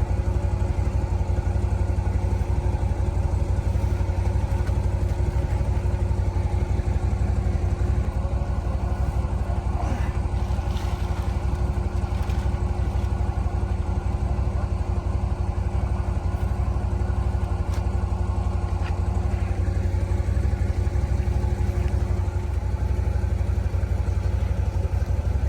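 Can-Am 6x6 ATV engine running steadily, hauling a load.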